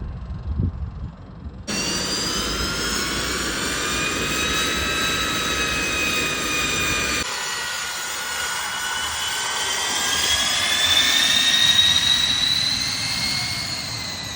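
Jet aircraft engines running loud with a high turbine whine over a rushing roar, the whine tones slowly rising and then falling, loudest about twelve seconds in. The sound cuts in abruptly about two seconds in over low wind rumble, and changes suddenly again about seven seconds in.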